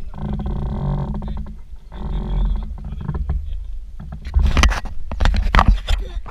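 Microlight trike's engine running steadily, with wind rumbling on the microphone. From about four seconds in, sharp knocks and rustles of the camera being handled close up.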